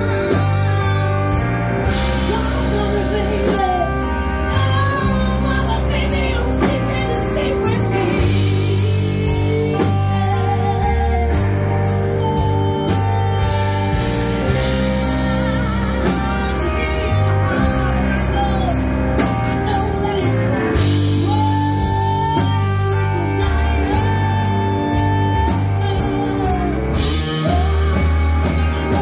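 Live rock band playing: a woman singing lead into a microphone over electric guitar, bass guitar, drum kit and keyboard, with a steady beat.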